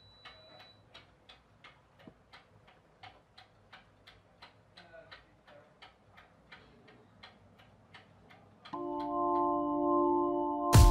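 Faint, even ticking at about four ticks a second. About three-quarters of the way in, sustained organ-like chords of outro music come in.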